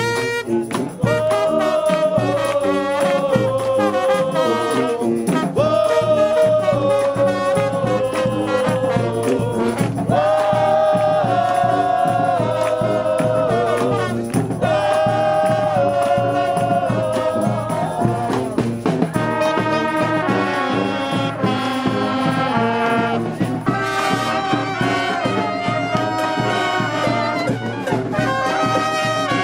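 Street brass band playing a tune: horns carry the melody in held notes over a steady beat.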